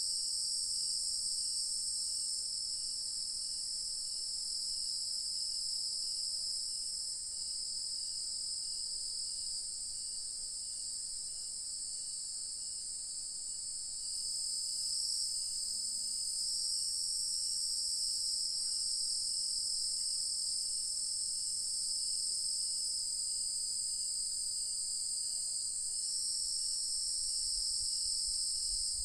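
Night insect chorus of crickets and cicadas: a steady, high, shrill drone, with a faint regular chirp repeating a little faster than once a second underneath.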